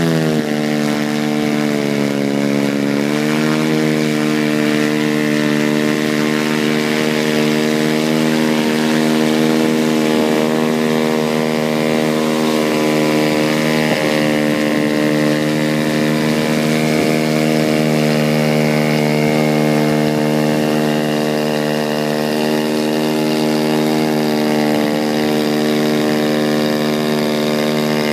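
DLE 55 RA single-cylinder two-stroke gasoline engine of an RC plane running steadily. Its pitch falls just after the start, drops a little more about three seconds in as the throttle comes back, then holds even.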